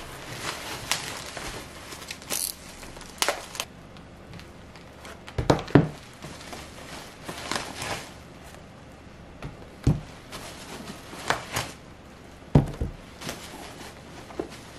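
Paperback books taken from a cardboard box and set down on a wooden table one at a time: soft thumps a few seconds apart, with crinkling and rustling between.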